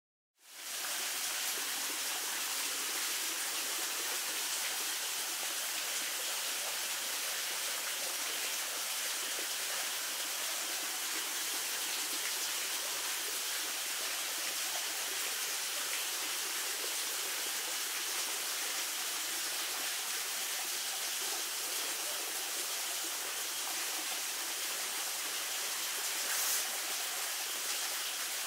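A steady, even hiss with no tones or rhythm, starting about half a second in, with one faint brief tick near the end.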